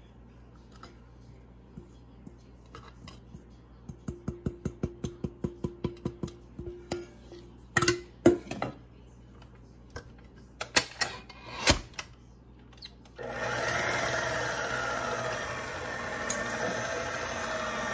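Scattered light taps and clicks, including a quick run of about four taps a second, then an electric stand mixer with a paddle attachment switches on about thirteen seconds in and runs steadily, beating the last of the flour into pound cake batter.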